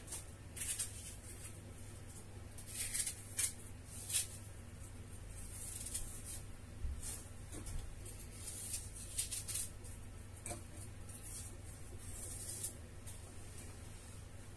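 Small kitchen knife peeling an apple half by hand: a series of soft, irregular scratching strokes as the blade slices through the skin.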